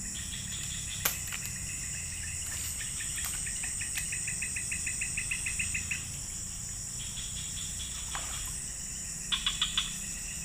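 Insects buzzing steadily at a high pitch. A rhythmic series of chirps, about six a second and growing louder, runs through the middle. There is a sharp click about a second in and four loud sharp chirps near the end.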